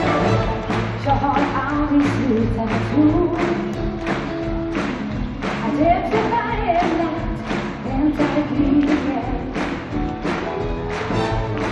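Live pop song played by a symphony orchestra with a singer, over a steady driving beat, heard from the audience in a concert hall.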